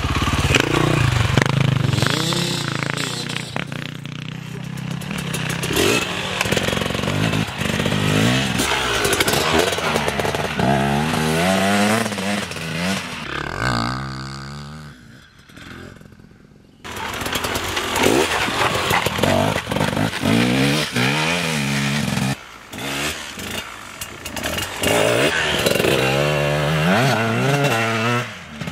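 Enduro dirt bike engines revving hard as riders pass one after another through snow and mud, the pitch rising and falling as they open and close the throttle. The sound drops away briefly about halfway through before another bike comes by.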